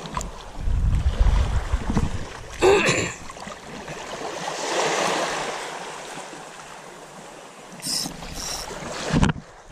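Wind buffeting the microphone and small waves washing over a shallow shoreline, with a few short handling bumps at about three seconds, eight seconds and just before the end.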